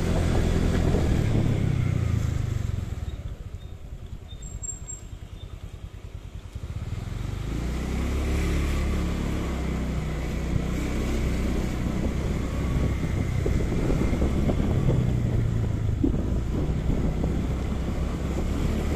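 Motorcycle engine running as the bike rides along a lane. It drops much quieter for a few seconds about three seconds in, then picks up again about seven seconds in and runs steadily at low speed.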